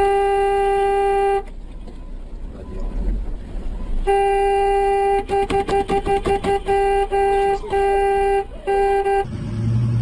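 Car horn honking with a single steady tone: a long blast, then after a pause another long blast, a quick series of short toots and a few half-second honks. Near the end it gives way to a low engine note rising in pitch.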